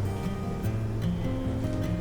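Background music: acoustic guitar strumming over sustained bass notes that change every half second or so.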